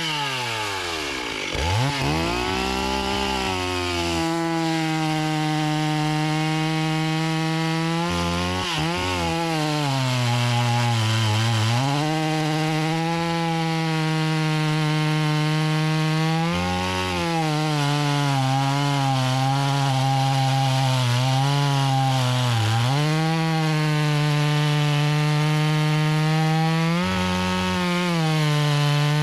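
Two-stroke chainsaw revving up near the start, then running at high revs while cutting wood, its pitch dipping briefly several times as the chain bogs in the cut.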